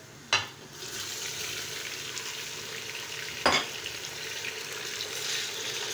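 Raw beef pieces hit hot oil and fried onions in an aluminium pressure cooker and sizzle steadily as they start to sear, stirred with a wooden spoon. A sharp knock comes just after the start and another about three and a half seconds in.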